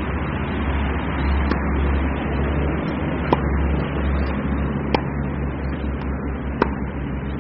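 Tennis balls struck with a racket during backhand practice: four sharp pops, one about every second and a half to two seconds, over a steady low rumble.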